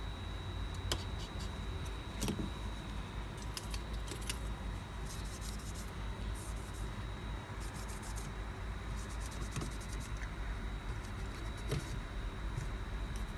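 Small clicks, taps and rustles from hands working on an opened iPhone 7, pressing parts into place and wiping it with a tissue, with one sharper click about two seconds in. Under it runs a steady low hum and a faint steady high whine.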